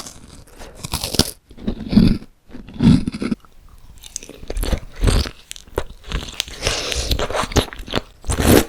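Close-miked crunchy eating: a person biting into and chewing crisp food in irregular bursts, with the loudest crunches about two and three seconds in and again near the end.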